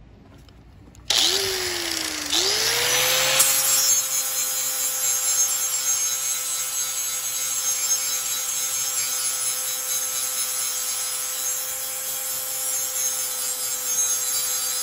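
Hitachi angle grinder with a flap disc sanding rust off curved steel. It starts about a second in, its pitch dipping and then climbing to a steady whine over a loud grinding hiss, and it stops abruptly near the end.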